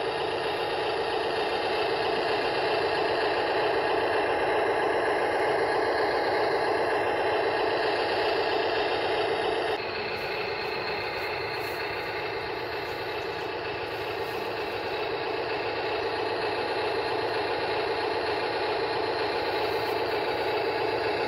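Huina 583 radio-controlled wheel loader running: a steady mechanical whir and rattle from its motors and gears, slightly quieter after about ten seconds.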